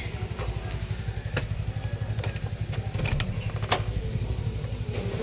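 An engine idling with a low, steady pulse, with several sharp clicks and knocks over it.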